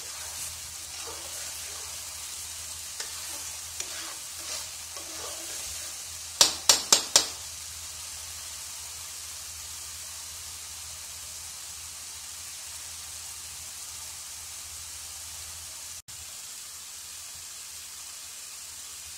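A mustard, garlic and chilli spice paste sizzling as it is roasted in an iron kadai, with a metal spatula scraping and stirring it. A little over six seconds in come four quick, sharp knocks, the loudest sounds.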